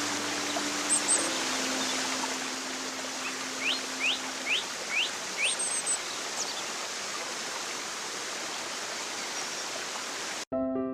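Steady rush of running water with a bird giving five short rising chirps, one after another, about four seconds in. Near the end it cuts off abruptly and piano music starts.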